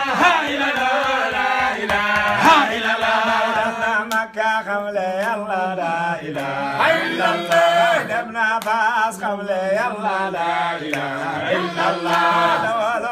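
Islamic devotional chanting in Arabic: several voices chant together in a wavering melody over a steady held low note, with clicks from about four seconds in.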